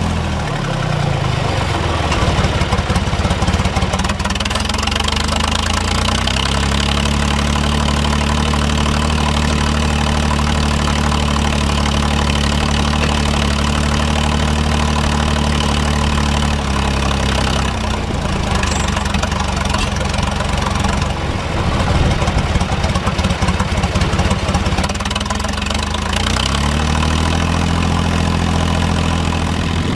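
John Deere 1030 tractor's three-cylinder diesel running through a stainless-steel exhaust pipe while pulling a cultivator. The engine note holds steady, then drops and picks up again a few times: right at the start, about six seconds in, around eighteen seconds and near the end.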